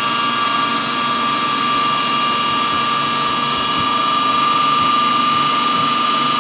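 Countertop food processor motor running steadily at full speed, its blade churning ice cream and milk into a milkshake, with a steady high whine.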